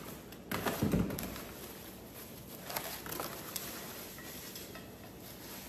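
Cardboard packing and clear plastic wrap rustling and crinkling as a metal strainer insert is lifted out of a box and unwrapped, with a few sharper rustles and light knocks. The loudest handling comes about a second in, and the sound grows quieter toward the end.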